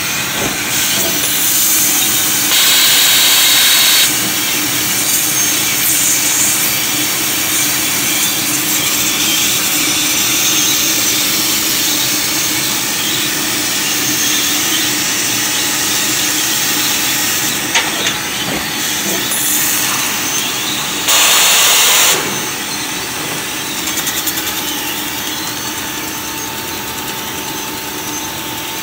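Trumpf CNC laser cutting machine cutting steel plate: a steady hiss of the cutting head's assist gas over a constant machine hum. Twice, about three seconds in and about twenty-one seconds in, a louder blast of hiss lasts a second or so.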